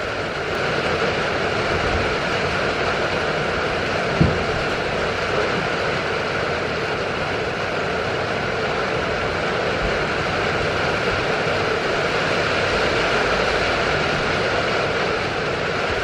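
Steady rain heard from inside a wooden goat shed: an even hiss, with one soft low knock about four seconds in.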